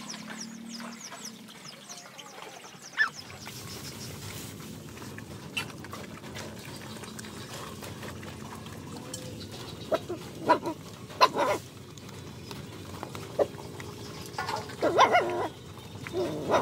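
Dogs eating a wet rice mash from a tyre feeder, a steady slurping and chewing broken by short, louder mouth sounds, most of them in the second half.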